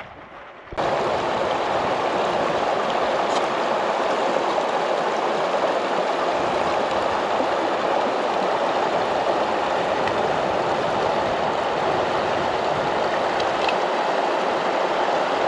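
Steady rushing of a mountain stream, cutting in suddenly about a second in.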